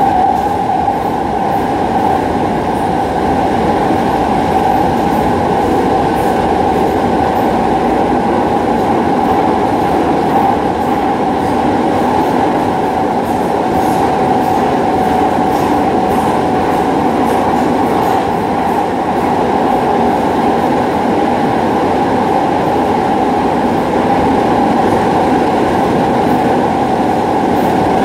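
Docklands Light Railway train running at steady speed, heard from inside the car: a constant rumble of wheels on rail with a steady whine over it.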